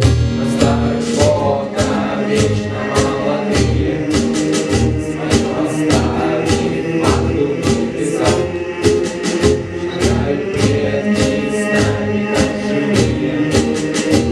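A song with a steady drum beat and bass, with a group of voices singing.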